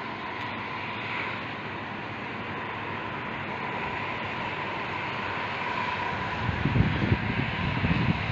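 Steady outdoor wind hiss with a faint steady whine under it; about two-thirds of the way in, gusts start buffeting the microphone with low rumbling thumps.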